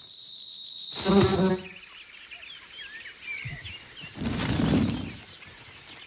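A thin high whine, then a fly's wings buzzing loudly for about half a second, about a second in. Small birds chirp over faint outdoor ambience, and a loud whoosh of wings passes a little after four seconds.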